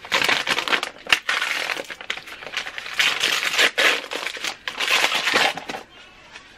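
Gold paper wrapping crinkling and tearing as it is ripped open by hand, with sharp clicks here and there. It dies down near the end.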